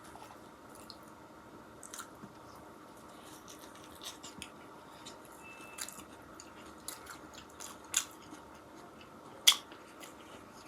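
Close-miked eating of a burger and chips: wet mouth clicks, chewing and small crunches, with two louder crisp snaps near the end.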